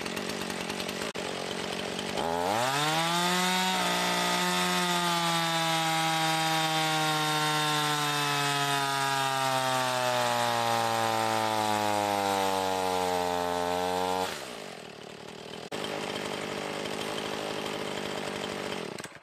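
Husqvarna 450 Rancher 50cc two-stroke chainsaw engine on a dyno: it runs low at first, then is revved to full throttle about two seconds in. It is held there for about ten seconds while its pitch sinks slowly as the dyno loads it down. The throttle is released, and it falls back to a low, steady idle.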